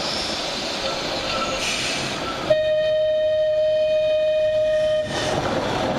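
Manx Electric Railway tram's horn sounding one steady note for about two and a half seconds, starting abruptly about two and a half seconds in and cutting off sharply, over a steady rushing noise as the tram approaches.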